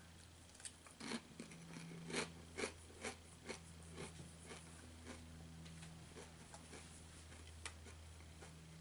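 A kettle-cooked potato chip being bitten and chewed: a run of about eight crunches from about a second in to four seconds in, then fainter chewing. A faint steady low hum runs underneath.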